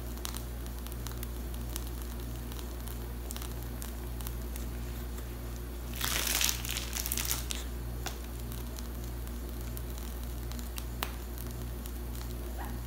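Faint squelching of whipped cream pressed through a piping bag, over a steady low hum, with a louder crinkling rustle about six seconds in that lasts a second or so.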